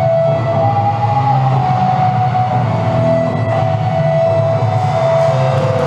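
Background music with long held notes over a steady low bass line.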